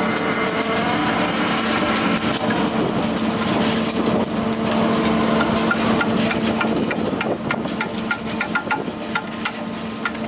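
Mar-Masz GAZ 102 wood chipper running with a steady engine hum. Sharp clicks and snaps come in quick succession, thickening in the second half.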